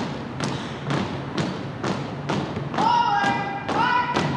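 Marching footfalls of a drill team striking a wooden gymnasium floor in step, about two a second, with a voice calling out two long, drawn-out drill commands near the end.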